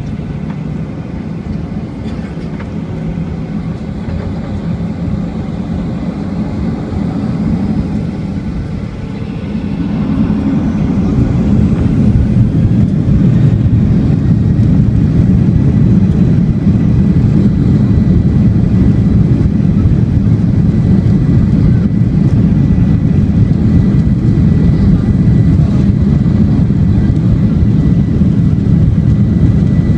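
Boeing 737-800's CFM56 jet engines spooling up to take-off thrust: a rising whine and a swelling low rumble about ten seconds in, then a steady loud rumble of the engines at full power.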